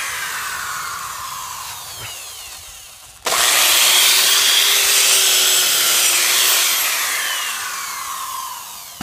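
Corded hammer drill with a foot-long masonry bit boring into rocky soil. It runs and slowly dies away, cuts in again suddenly about three seconds in, runs loud for several seconds with its pitch sagging, then fades.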